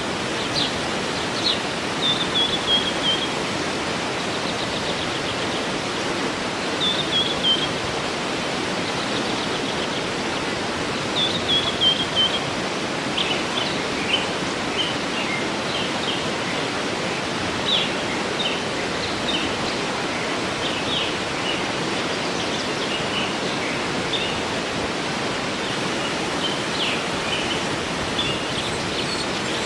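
Waterfall rushing steadily, with birds singing over it: a short falling phrase repeated a few times, then scattered high chirps.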